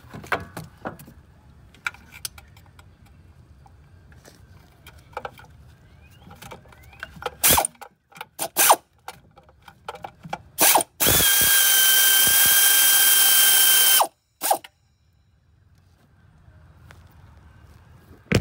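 A cordless power tool runs out the 8 mm bolts of a 62TE transmission pan. First come light clicks and tool knocks, then a few short bursts, then one steady run of about three seconds that stops abruptly.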